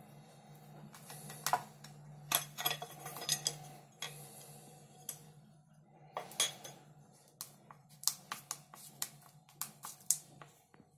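RZBA-04-04M beta radiometer clicking: irregular sharp clicks, some in quick clusters, over a steady low hum.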